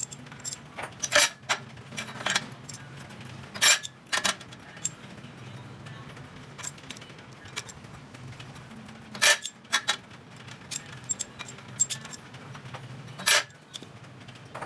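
Small metal tools and pieces clinking and tapping at irregular intervals, with about half a dozen sharper knocks among lighter clicks, over a steady low hum.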